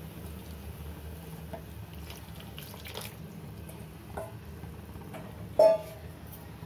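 Watery coconut paste poured from a small bowl into a metal cooking pot, with a few light knocks of the bowl and spatula against the pot. About five and a half seconds in comes one sharp metal clank with a short ring. A steady low hum runs underneath.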